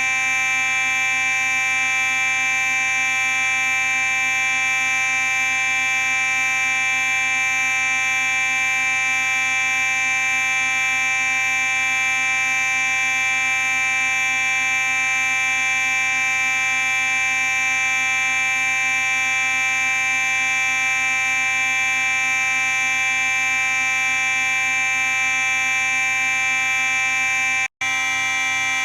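Simplex 4903-9838 fire alarm sounding a continuous, steady buzzy tone rich in overtones. It cuts out for an instant about a second before the end, then carries on.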